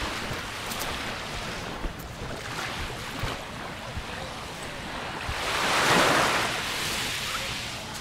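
Small sea waves lapping and washing onto a sand-and-pebble shore. One wash swells to a louder rush about six seconds in, then fades.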